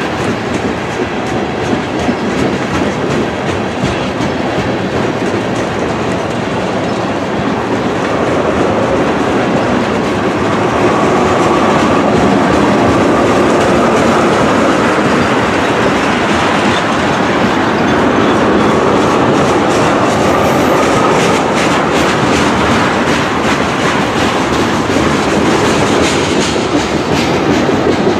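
Freight train tank cars rolling past close by: a steady rumble with wheels clicking over the rail joints and a faint wheel squeal through the middle, growing a little louder about ten seconds in.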